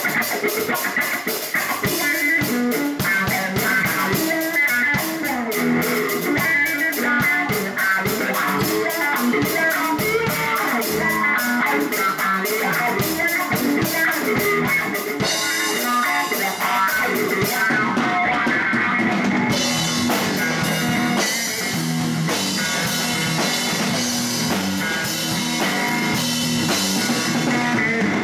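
Live blues-rock band playing an instrumental stretch: electric guitar lines over electric bass and a Ludwig drum kit, with a steady cymbal wash that grows fuller about halfway through.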